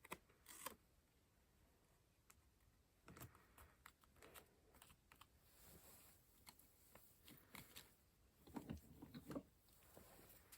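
Quiet paper-craft handling: scattered light taps and clicks with brief rustles of paper as materials are handled on a journal page, busiest and loudest near the end.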